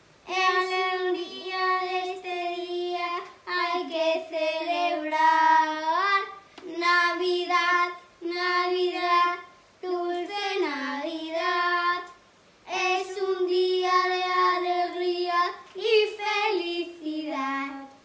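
Children singing a Spanish Christmas carol without accompaniment, in phrases of long held notes with brief pauses for breath between them.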